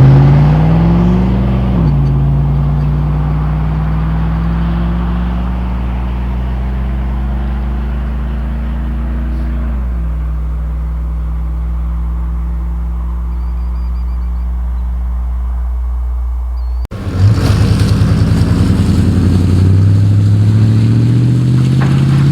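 Exhaust of a 5.3L Chevy V8 truck through Cherry Bomb Salute mufflers, under way: the engine pitch rises under acceleration, then drops about two seconds in as it shifts up. It then runs at a steady cruise, with another drop in pitch about ten seconds in. Near the end the sound cuts abruptly to another run, where the engine pitch climbs and then holds steady.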